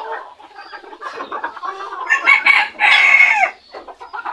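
A flock of Cochin and frizzle bantam chickens clucking, with a rooster crowing about two seconds in, one call of over a second whose pitch drops at the end.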